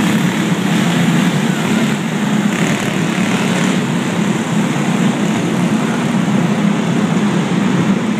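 Several go-kart engines running together as the karts race around an indoor dirt track: a steady, loud engine drone.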